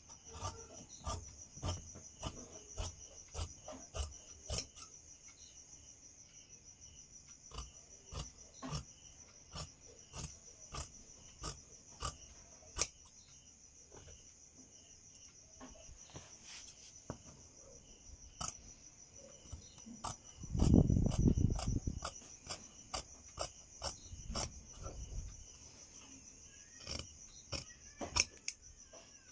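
Tailor's scissors cutting through two layers of blouse fabric: a string of sharp snips as the blades close, about two a second at first, then more spread out. Crickets chirp steadily in the background, and a louder low rumble lasting about a second and a half comes about two-thirds of the way through.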